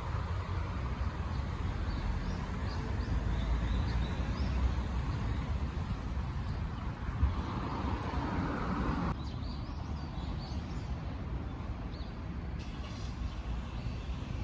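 Outdoor ambience of a park path: a steady low wind rumble on the microphone, with faint high bird chirps now and then. About nine seconds in, the background changes abruptly to a quieter one.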